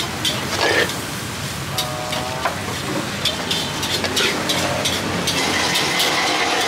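A metal spatula scraping and clicking against a wok as a crisp yellow pancake is folded and lifted out, over a steady background of street noise.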